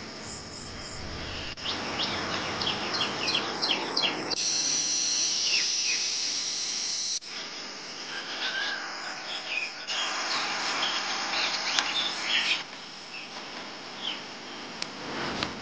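Outdoor ambience of birds chirping in short calls over a steady high insect buzz, changing abruptly every few seconds as edited clips change.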